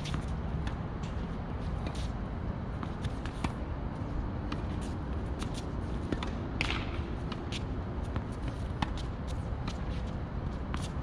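Tennis balls struck by rackets and bouncing on the court: scattered sharp knocks at irregular intervals, with a short scuffing scrape a little past the middle, over a steady low rumble.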